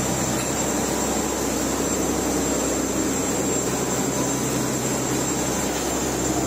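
Steady drone of a fishing boat's engine and machinery: a constant low hum with a faint high whine, unchanging throughout.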